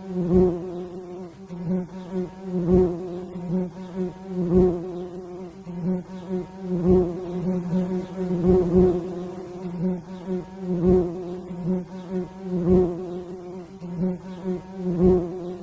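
Bee buzzing close to the microphone: a steady droning buzz that swells in loudness about every two seconds, each swell with a brief low thud.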